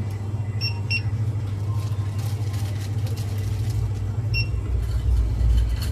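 Steady low rumble of a vehicle engine, growing deeper and louder in the second half. Three short high beeps come through, two close together near the start and one about four seconds in.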